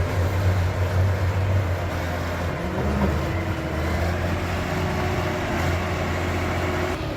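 A heavy logging machine's engine running steadily with a deep hum. About two and a half seconds in, its pitch rises briefly, then settles.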